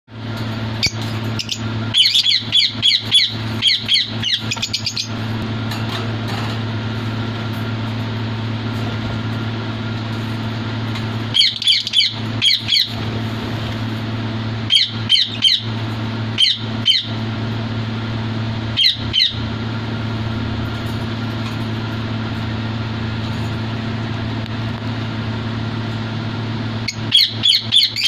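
Caged lovebirds chirping in bursts of quick, high-pitched calls, several clusters separated by pauses of a few seconds, over a steady low hum.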